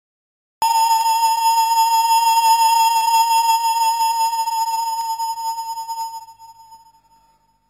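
Background music: one long, slightly wavering high note with a woodwind-like tone, starting just after the beginning and fading away over the last second and a half.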